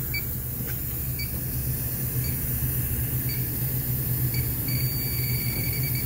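Inficon D-Tek Stratus refrigerant leak detector beeping: a short beep about once a second, speeding up into rapid, almost continuous beeping near the end as the probe picks up leaking refrigerant around the evaporator pipework on medium sensitivity. Under it runs the steady low hum of the refrigeration unit's fan.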